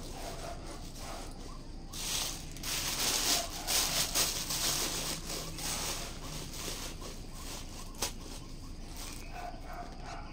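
Rustling and crinkling as a black leather handbag is handled and rummaged inside, with one sharp click about eight seconds in.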